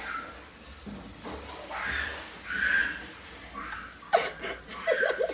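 Short vocal outbursts and laughter from a person, ending about four seconds in with a run of quick, choppy laughing pulses.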